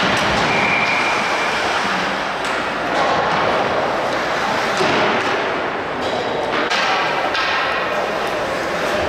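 Ice hockey game play: steady rink noise broken by several thuds and knocks of puck, sticks and bodies against the ice and boards.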